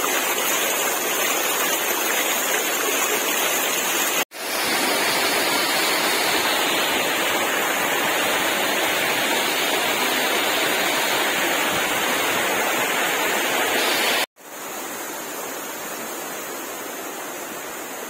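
Steady rush of water running over a shallow, stony stream bed. The sound cuts out for an instant twice, about four and fourteen seconds in, and is quieter after the second break.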